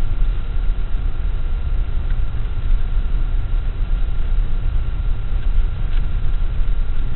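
Steady low rumble inside a truck cab as it drives across a grassy field: engine and tyre noise, with a faint steady high whine and a light tick about six seconds in.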